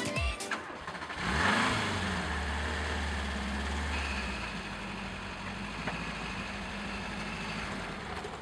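Renault 5 Turbo 2's turbocharged four-cylinder engine given a short rev about a second in, then idling steadily.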